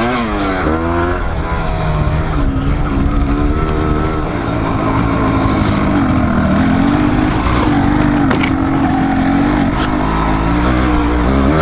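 Dual-sport motorcycle engine under load on a dirt trail, revving up and down as the throttle is worked, with a few sharp knocks.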